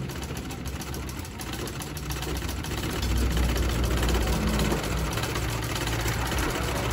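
Treadle-powered Singer sewing machine stitching: a rapid, steady clatter from the needle mechanism.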